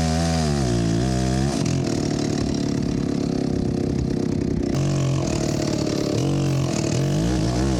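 Large two-stroke chainsaw engine running. Its pitch swings up and down with the throttle for the first second and a half, holds steady through the middle, and swings again near the end.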